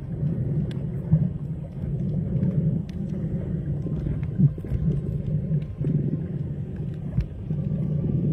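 Underwater sound picked up by a camera submerged while snorkeling: a steady muffled low rumble with scattered sharp clicks.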